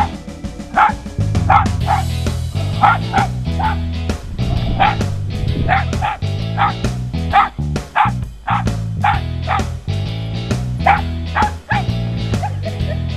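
Cairn terrier barking over and over in short, sharp yaps, about two a second, with a brief pause a little past the middle. Background music plays underneath.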